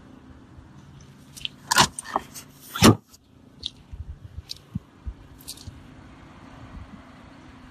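Clicks and knocks from handling a car's rear cabin fittings: two loud sharp knocks about a second apart, the second the loudest, then a few lighter clicks and taps over a steady low hum.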